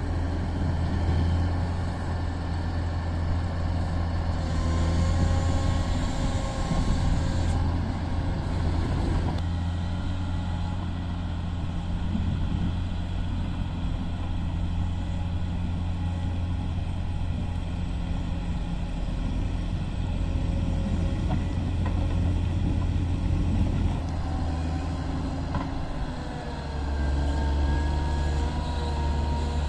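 Caterpillar 140M motor grader's diesel engine running steadily under load as the machine grades the road. Its note shifts lower near the end.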